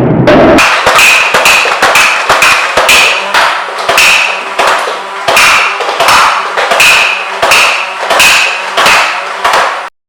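Nerf flywheel blaster firing foam darts in rapid succession, a sharp crack and smack about three times a second as the darts hit the safety goggles under test. The shots stop abruptly near the end.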